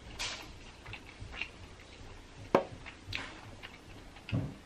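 Close-miked eating sounds from chewing a crispy-fried birria quesadilla: scattered wet mouth clicks and crunches, with one sharp click about halfway through and a soft low thump near the end.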